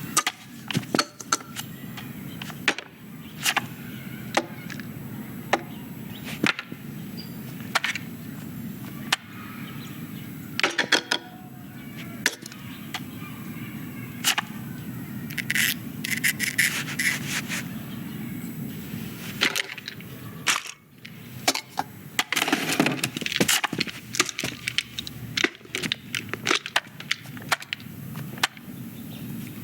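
Film foley of toys being handled: a string of small wooden and plastic clicks, knocks and rubbing over a steady low room hum, with busier clusters of clatter midway and near the end.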